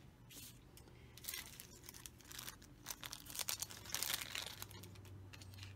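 Crinkling and rustling as hands handle craft paper and small items on a tabletop, with scattered small clicks. It is loudest about four seconds in.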